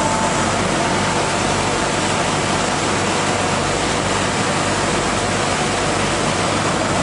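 Wide-belt sanding machine running, a steady, even rushing noise with a low hum underneath.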